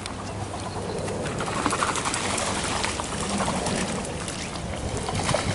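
Birds calling among a gathering of ducks, ibis and other waterfowl: a busy mix of many short calls.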